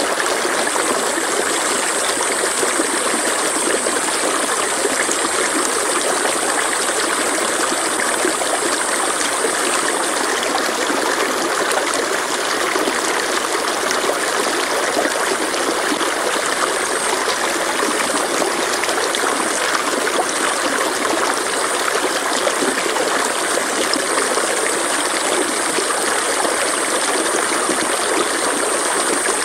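Stream flowing steadily, a continuous rushing and trickling of water.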